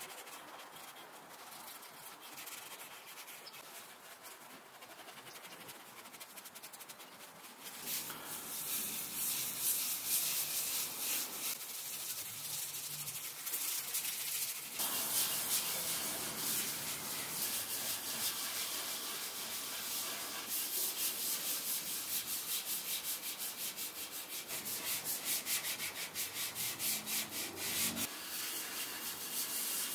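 A cloth rag rubbed by a gloved hand over Baltic birch plywood, wiping on finish: a scratchy rub in quick repeated back-and-forth strokes, quieter for the first several seconds.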